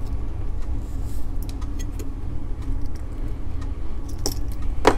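Faint small metallic clicks of steel tweezers working at a digital watch's metal battery contact plate on its circuit board, with one sharper click near the end, over a steady low hum.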